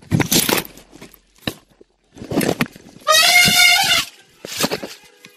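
A wild elephant trumpets once for about a second, about three seconds in, in a loud wavering blare; it is provoked and charging. Short rustling, crashing bursts come before and after it.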